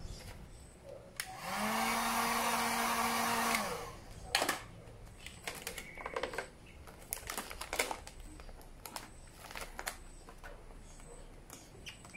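Hand-held hot-air gun switched on for about two and a half seconds, a steady blowing with a motor hum, heating vinyl wrap film so it can be stretched. After it stops come scattered crinkles and clicks of the plastic vinyl film being handled and folded over the seat cowl's edge.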